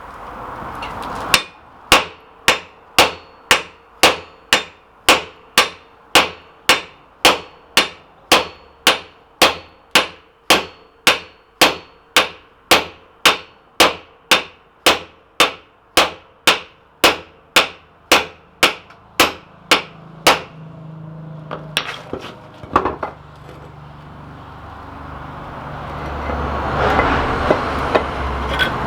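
Hammer blows on the parts of a post vise being taken apart: a long, even run of sharp strikes, about two a second, followed by a few lighter knocks.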